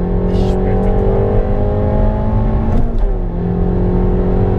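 Tuned Peugeot 308 GTi's 1.6-litre turbocharged four-cylinder, over 300 hp, accelerating hard under full throttle, heard from inside the cabin. The engine note climbs steadily, breaks with a short crack and a drop in pitch as it shifts up about three seconds in, then climbs again.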